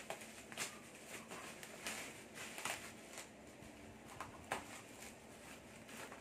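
Plastic parcel wrapping crinkling and rustling in short, irregular bursts as a package is pulled and cut open by hand.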